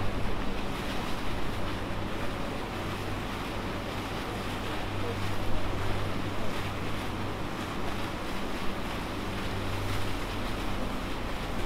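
Ferry under way: a steady low engine hum under a rushing haze of wind on the microphone and water washing along the hull.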